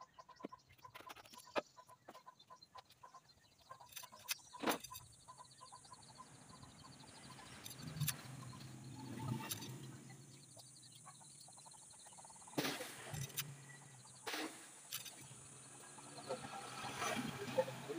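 Scattered knocks and clinks of hand work at the top of an engine that is not running, as oil is poured in and the bottle and filler are handled. Chickens can be heard in the background.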